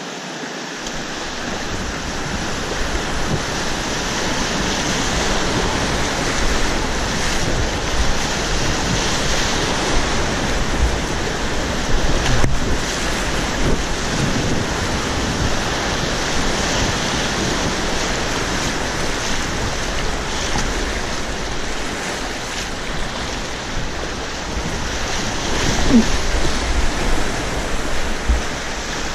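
River rapids rushing and churning around an inflatable kayak, with water splashing against the boat now and then and wind noise on the microphone.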